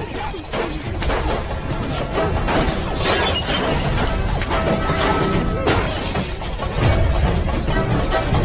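Action-film score under fight sound effects: a quick run of hits and crashes, with things smashing and breaking.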